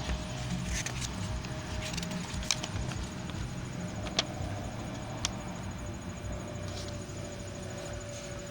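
Low steady background rumble with a faint hum, broken by a few short, sharp clicks.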